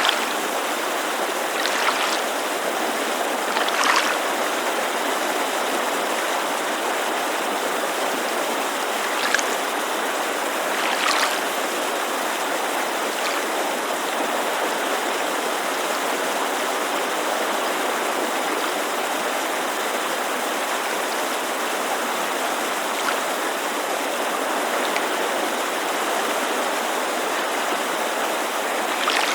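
A mountain creek rushing in a steady, even hiss. A few brief splashes of small waves lapping against a lakeshore come through in the first half.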